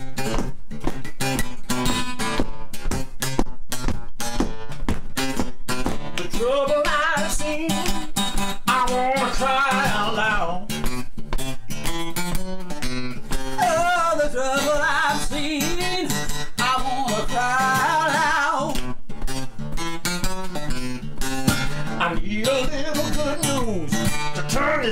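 Acoustic guitar playing a slow song. Singing joins about six seconds in, in long phrases with wavering held notes, over the guitar.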